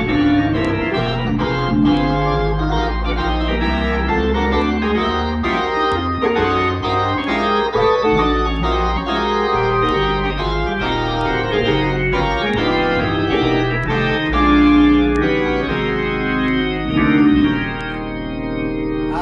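Organ playing music: held chords over a continuous bass line, with frequent note changes.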